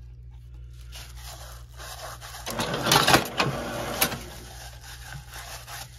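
Gyoza-making machine running with a low steady hum. From about two and a half to four seconds in there is a louder scraping clatter, ending in a sharp tick, as a gloved hand pushes the last of the filling down through its nearly empty hopper.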